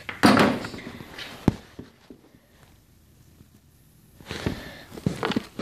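Handling noise as a plastic tub of soil is carried and set down: a loud rough scrape near the start, a sharp knock about a second and a half in, then more scuffs and clicks near the end.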